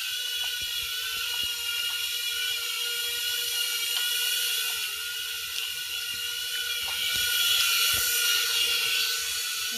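Holyton HS330 mini quadcopter drone in flight, its four small propellers giving a steady high-pitched buzzing whine that grows louder near the end as the drone comes close.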